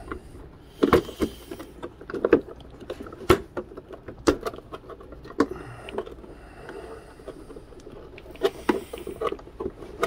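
Hands working a Spektrum Firma 4068 1900 kV brushless motor loose from its mount inside an RC boat hull: scattered clicks, knocks and light scrapes as the motor, its wires and cooling lines are handled.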